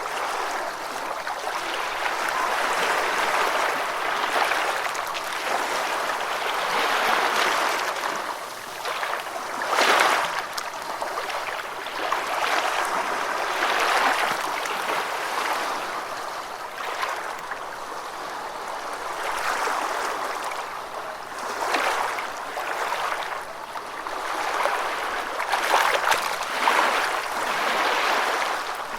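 Gentle ocean waves washing in, a continuous rushing that swells and eases every few seconds, with a few brief stronger surges.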